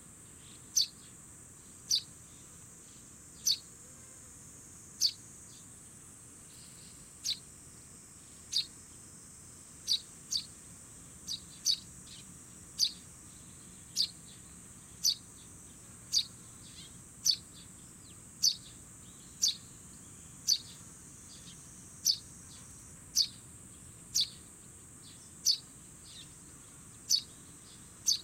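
Fledgling Eurasian tree sparrow giving short high chirps, about one a second, the repeated calls of a young bird just out of the nest. A steady high insect hiss runs underneath.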